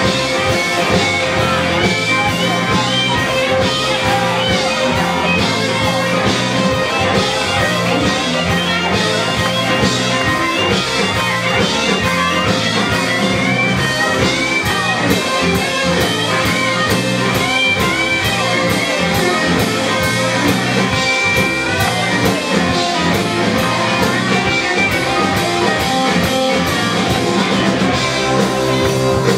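A live blues-rock band playing, with electric guitar over drums and a steady run of cymbal strokes.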